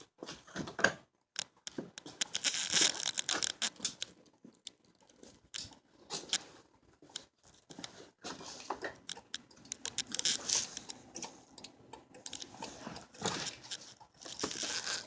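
Irregular clicks, knocks and rustling from hands handling and fitting car parts.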